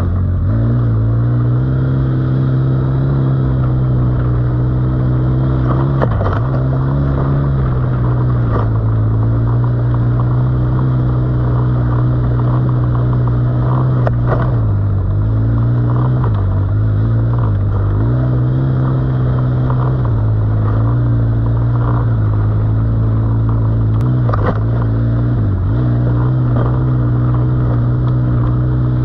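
Quad bike (ATV) engine running steadily while riding, its pitch dipping briefly several times as the throttle eases off and picks back up. A few sharp knocks break in now and then.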